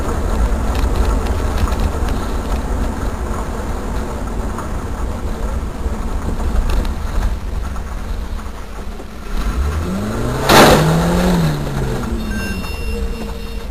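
Steady low road and engine rumble of a moving vehicle, picked up by a dash camera inside the cab. About ten seconds in, a short loud burst of noise cuts through, with a whining pitch that rises and then falls around it.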